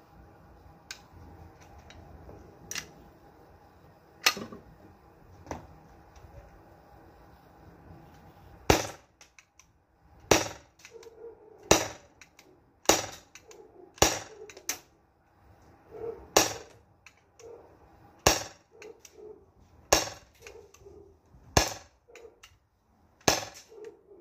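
Umarex Glock 17 CO2 gas-blowback airsoft pistol: a few clicks as it is handled, then about ten sharp shots one to two seconds apart, the slide cycling with each shot. It empties its ten BBs and the slide stays locked back.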